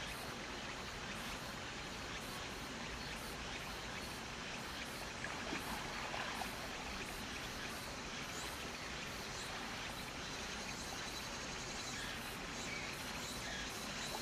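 Water splashing and lapping as a person floating on his back paddles with his arms, over a steady rush of flowing stream water.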